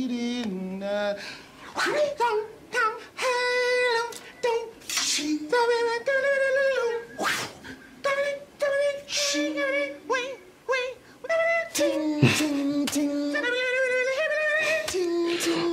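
Men imitating a fight with their mouths: a fast run of sharp clicks and bursts mixed with wavering, sung-like vocal tones, in the manner of beatboxing.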